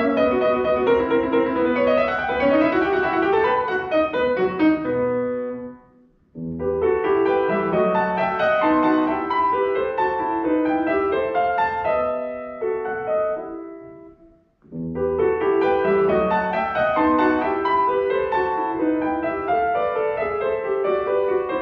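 Grand piano playing a classical solo piece. The music twice breaks off into brief silences, about six seconds in and again about fourteen seconds in, where the notes die away before the playing resumes.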